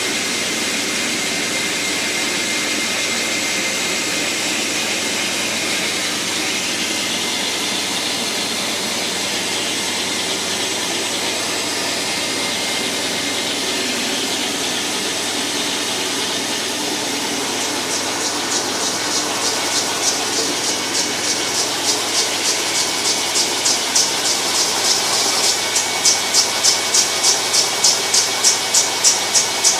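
Rotovac rotary carpet extractor running as its spinning head scrubs and vacuums the carpet, a steady suction hiss and machine drone. About eighteen seconds in, a rhythmic pulsing hiss of roughly two beats a second sets in and grows louder.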